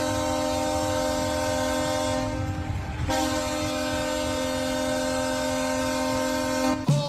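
Sylvan Lake Wranglers hockey goal horn sounding: a steady horn blast that dies away about two seconds in, then a second long, steady blast from about three seconds in, cutting off just before the end, where the goal song begins.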